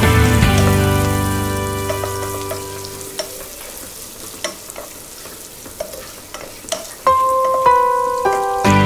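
Sliced onions sizzling in hot oil in a nonstick pot while a wooden spatula stirs them, with a few light knocks of the spatula against the pan. Background music dies away over the first few seconds, and single music notes start again about seven seconds in.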